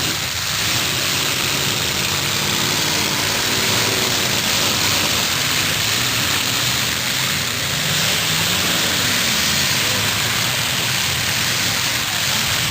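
Engines of several demolition derby cars running together in a steady, loud din, with one engine's pitch dropping about nine seconds in.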